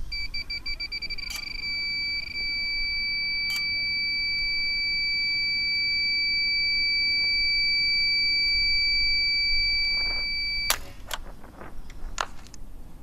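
SkyWall 100 net launcher's SmartScope targeting tone: quick beeps that settle into one steady high tone while it tracks a drone. About eleven seconds in, a sharp pop as the compressed-gas launcher fires cuts the tone off, followed by a few clicks.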